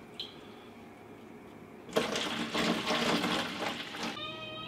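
Water splashing and sloshing into a steel stockpot for about two seconds, starting suddenly about two seconds in. A steady pitched tone with overtones starts near the end.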